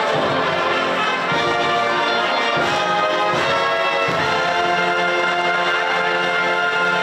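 Band or orchestra music led by brass, playing slow sustained chords at a steady level.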